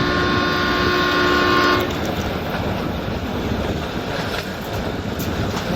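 Toy electric LRT train sounding its electronic horn, one steady tone held for about two seconds at the start and stopping abruptly, while the train keeps running along its track with a steady running noise.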